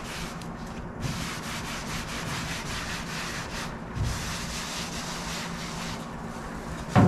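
A cloth wiping and rubbing over a car's masked bodywork and plastic sheeting, a steady scrubbing noise with brief pauses, as the surface is wiped down with wax and grease remover before painting. A light bump about four seconds in.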